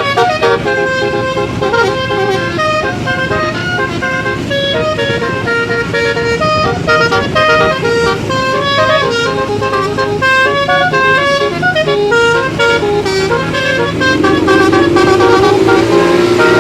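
Indonesian bus 'telolet' basuri horn, a 12-note electric musical horn with roof-mounted trumpets, playing a fast melody of short stepped notes, with the bus engine running underneath. A sliding, siren-like tone rises in over the last couple of seconds.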